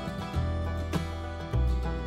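Background music: country-style acoustic guitar music with a steady bass line.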